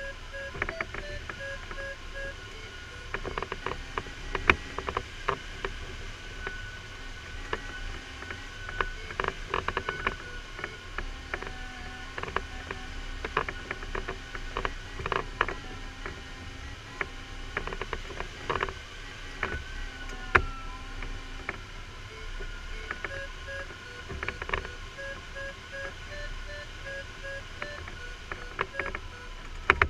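Glider's electronic variometer sounding: rapid short beeps, about two a second, near the start and again over the last several seconds, which signal climbing air. In between it gives a steady tone that shifts in pitch. Under it there is a low rush of air in the cockpit and many sharp clicks and knocks.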